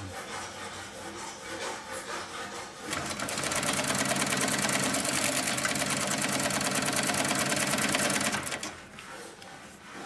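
Pfaff 335-type cylinder-bed, unison-feed (walking-foot) industrial sewing machine stitching, with a rapid even run of needle strokes. It runs more quietly for about three seconds, then gets clearly louder, and stops about eight and a half seconds in.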